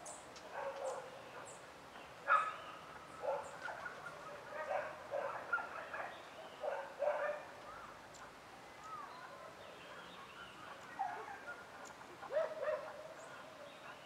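A distant dog barking and yelping in irregular bursts, loudest a couple of seconds in and again near the end, with a quieter spell in the middle; faint short high chirps sound over it.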